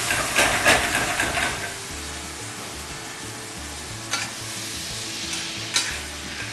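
Oxtail pieces and onions sizzling in a stainless steel pan with a splash of meat stock. The sizzle is busier in the first second and a half, then settles to a steady hiss. Two sharp clicks come about four and six seconds in.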